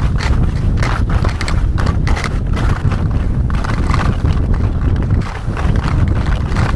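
Skis clattering and scraping over hard, wind-packed crusted snow as a kite pulls the skier along, in irregular knocks a few times a second. Under them is a heavy rumble of wind on the microphone.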